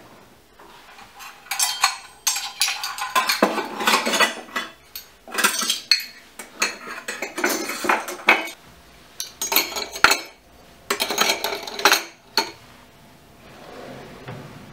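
Metal measuring cups and kitchen utensils clinking and rattling against each other as they are set into a wooden drawer, in several bursts of clatter with short pauses between.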